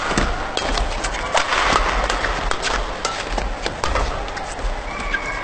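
Badminton rackets striking a shuttlecock in a fast doubles rally: sharp hits about every half second, with short squeaks of court shoes.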